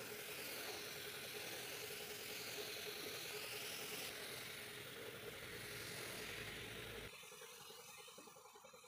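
Steady hiss of compressed air from a body-shop air tool, with a constant hum underneath; the sound drops away about seven seconds in.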